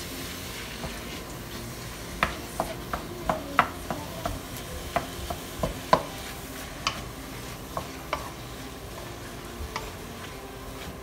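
Pork mince sizzling steadily in hot oil in a non-stick pan, while a wooden spatula breaks it up with irregular clacks and scrapes against the pan.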